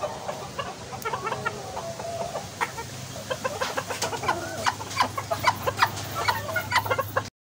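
Golden Sebright bantam chickens clucking in short, scattered calls, with one longer, wavering call about a second in. The sound cuts off abruptly near the end.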